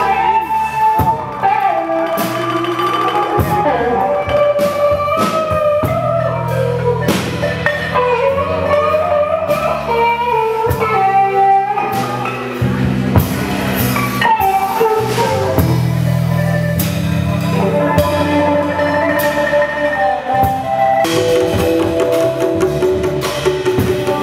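Band music with electric guitar, bass and drums, playing continuously.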